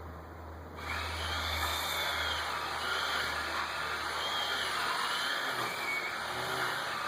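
Electric chainsaw running in a cut through a thick tree trunk. It turns suddenly louder and harsher about a second in, and its whine wavers up and down as the chain works under load.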